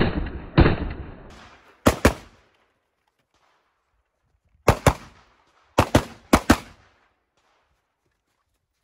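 AR-15-style semi-automatic rifle fired about ten times, mostly in quick pairs (double taps) with gaps of a second or two between pairs, each shot with a short echo tail.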